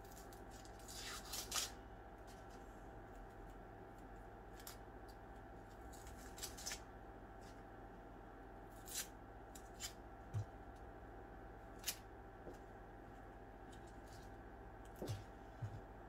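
Dry, papery onion skin being peeled off by hand: faint, scattered crackles and rustles, with a couple of soft knocks near the end as the peeled onion is set down on the cutting board.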